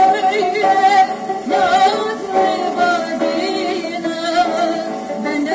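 Old 78 rpm shellac recording of a Turkish folk song (türkü) from Harput: a soprano sings a wavering, ornamented melodic line over a sustained instrumental accompaniment, likely the tanbur.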